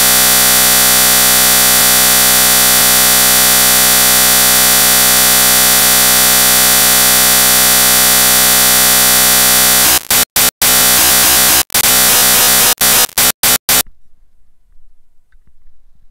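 Loud, steady digital buzz from corrupted audio in an action-camera recording. About ten seconds in it breaks up with several brief dropouts, then cuts off suddenly.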